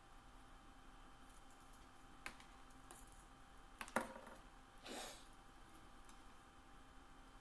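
Near silence with a few faint handling noises from wiring a 3D printer kit: a soft click about two seconds in, a sharper click about four seconds in, and a brief rustle just after.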